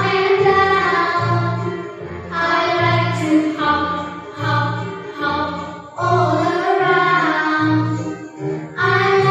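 Children's phonics song: singing over a backing track with a steady bass beat.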